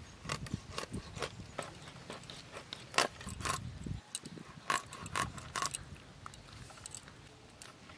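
A large chitol fish (clown knifefish) being sliced lengthwise on an upright boti blade: irregular crackling clicks as the blade cuts through skin, flesh and small bones.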